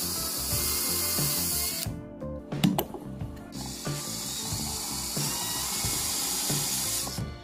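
Cordless drill running as it bores a hole into a plastic pulley, in two runs. The first stops about two seconds in, and the second runs from about three and a half seconds in until just before the end. Background music with a steady beat plays underneath.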